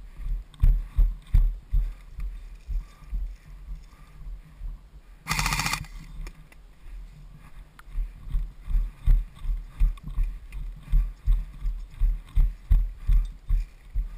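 Footsteps of a person walking on dry desert dirt, heard as steady low thuds about two to three a second through a body-worn camera. About five seconds in comes a brief, loud rattle lasting about half a second.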